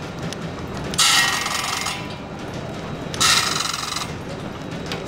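Old belt-driven machine tool cutting metal, with a loud, high, ringing cutting noise about a second long that comes twice, roughly two seconds apart, over a steady clatter of line-shaft machinery.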